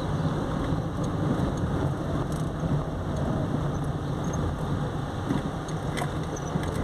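Steady engine drone and tyre and road noise of a vehicle being driven along a paved road.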